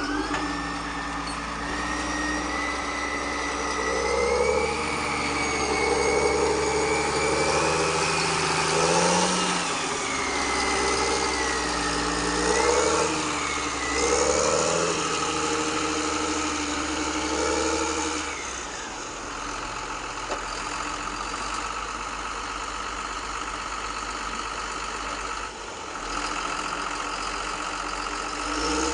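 Radio-controlled construction models running, with engine-like running sound and a motor whine that rises and falls in pitch as the machines move. The whine and the pulsing stop about two thirds of the way in, leaving a steadier, quieter running sound.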